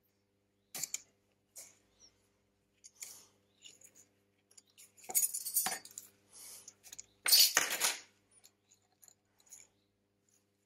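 Small clicks, taps and scrapes of a tool and fingers on the internal parts of an opened Samsung Galaxy S9 Plus as its flex connectors and logic board are worked loose. There is a longer scraping rattle ending in a sharp click about five seconds in, and the loudest scraping rattle comes about two seconds later.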